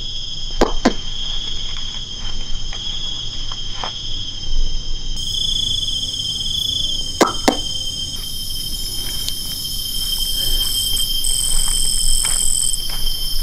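Night insects trilling steadily in several high pitches, with scattered faint footsteps and a few sharp clicks or knocks, the loudest pairs about a second in and halfway through.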